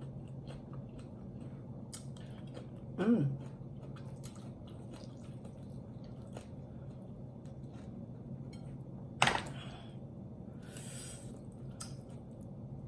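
A person chewing and eating saucy chicken by hand, with small wet clicks over a steady low hum. About three seconds in comes a short voiced sound that falls in pitch, and about nine seconds in a single sharp knock.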